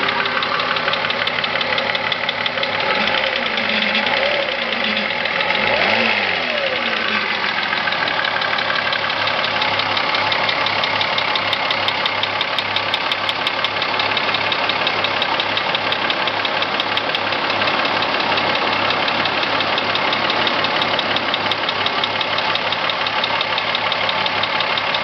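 Volkswagen Corrado VR6 engine idling with a knock, revved up and down a few times a few seconds in and then settling back to a steady idle. The knock is the fault the video is about.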